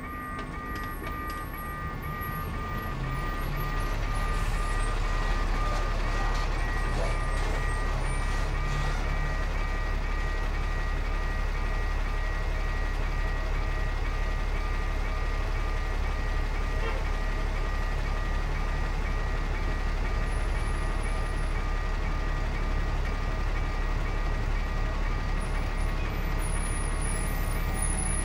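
A level-crossing warning signal sounds a steady run of rapid, even beeps. From about three seconds in, a truck's engine idles close by, and its low, steady rumble becomes the loudest sound.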